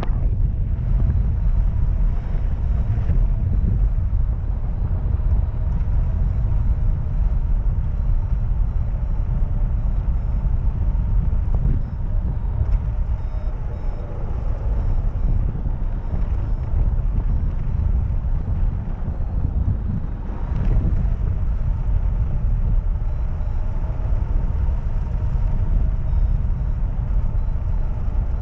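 Airflow of a hang glider in flight buffeting the microphone of a wing-mounted camera: a steady, heavy low rumble of wind noise, with faint wavering tones above it.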